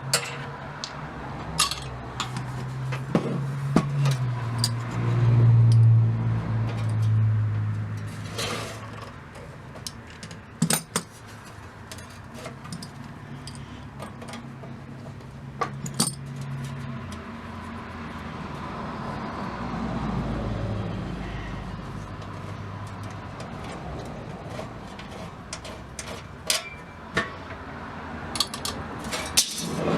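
Scattered metallic clinks and knocks as the small metal radio chassis, case and loose parts are handled and set down, with a low drone swelling and fading a few seconds in.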